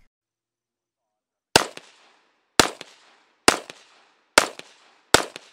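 AK assault rifle, a formerly deactivated museum weapon restored to firing condition, firing five single shots about a second apart, each followed by a short fading echo. The first shot comes about a second and a half in.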